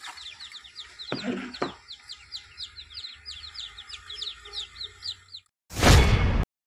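Newly hatched chicks peeping rapidly: high, downward-sliding chirps several times a second, with a brief lower sound about a second in. Near the end the peeping stops, and a loud burst of noise under a second long, an intro sound effect, cuts in and stops suddenly.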